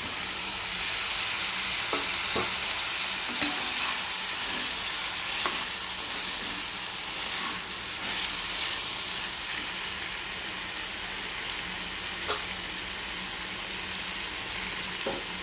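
Raw potato cubes sizzling in hot oil in a kadai with onion-tomato masala, steady frying noise. They are stirred with a wooden spatula that knocks against the pan a few times.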